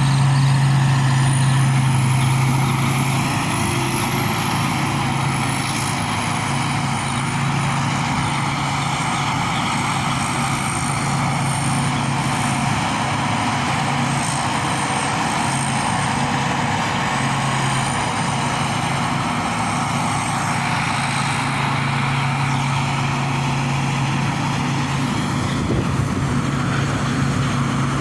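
Rice combine harvester running steadily while unloading grain: a loud, constant engine drone with a faint high whine that wavers up and down in pitch.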